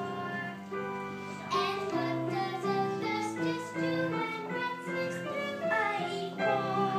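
Children singing a song with musical accompaniment.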